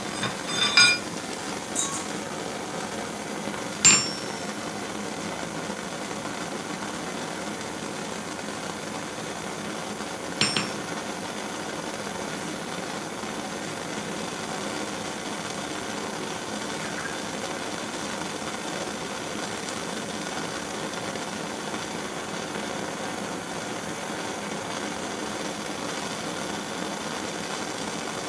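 A few sharp metallic clinks of steel and hammer on a small anvil: several in the first second or two, a loud one about four seconds in, and a double clink about ten seconds in. Under them is a steady hiss, typical of a propane torch burning while it heats the stock.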